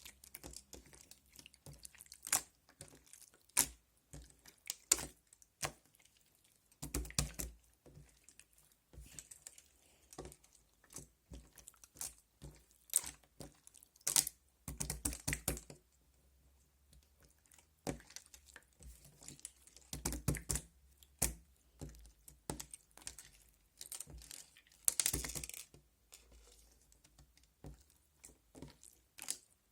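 Slime being kneaded and pressed by hand, making irregular sticky clicks and small air-bubble pops. A few longer stretches of dense crackling squishing come through as it is folded and squeezed.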